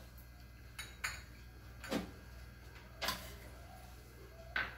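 A few light clinks of small glass bowls being handled as ingredients are tipped into a steel pot of water, roughly a second apart.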